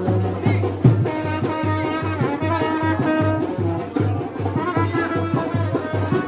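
Brass band playing a melody on horns over a steady drum beat.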